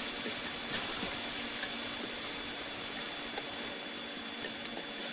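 Oiled peach halves sizzling on an indoor electric grill: a steady hiss with a few faint crackles.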